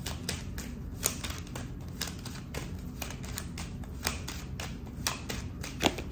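A deck of divination cards being shuffled overhand, hand to hand: a continuous run of light, irregular card clicks, several a second, with a few sharper snaps about a second in and near the end.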